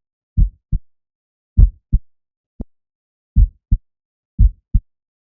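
Heartbeat recording processed with EQ, fades, pitch shift and time stretching: four low lub-dub double thumps, roughly one a second, with dead silence between them. A single short click falls between the second and third beats.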